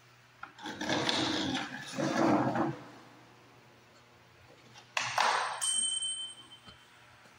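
Steel parts of a home gym frame being handled and fitted together: two bouts of scraping and rattling, about a second in and again about five seconds in. The second starts sharply and is followed by a brief high ringing tone.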